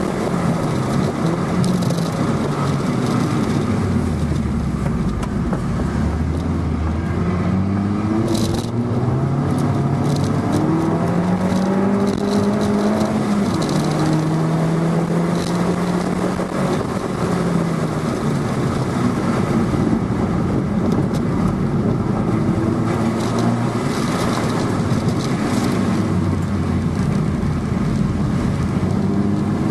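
Cabin sound of a 2011 MINI Cooper S (R56 LCI) 1.6-litre turbocharged four-cylinder at track pace. The engine note climbs and drops back repeatedly through gear changes and lifts, over a steady hiss of tyres on wet pavement. A single sharp click comes about eight seconds in.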